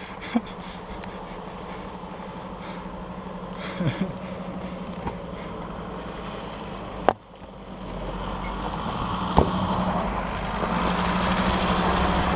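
A van drives up on a gravel road, its engine and tyre noise growing steadily louder over the last four seconds. A steady low engine hum runs underneath, with a sharp click about seven seconds in.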